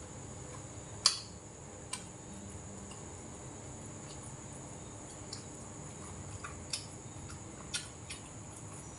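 Chopsticks and a metal spoon clicking against bowls and dishes a few times, the sharpest click about a second in and several lighter ones near the end, over a steady high hiss.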